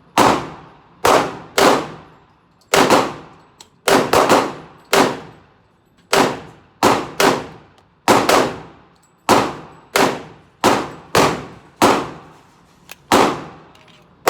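A long string of gunshots, around twenty fired one at a time at an uneven pace of roughly one or two a second. Each shot has a ringing tail that fades quickly.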